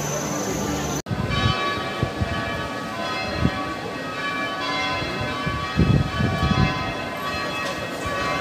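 Church bells ringing: many overlapping steady tones that start abruptly about a second in and keep sounding. A few dull low bumps come near the six-second mark.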